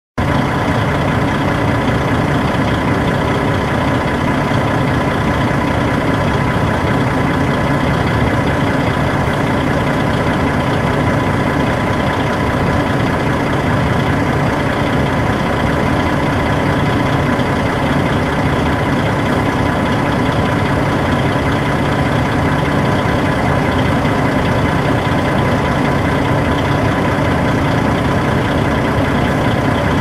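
City bus engine idling steadily: an even, unbroken low hum with a thin steady whine above it.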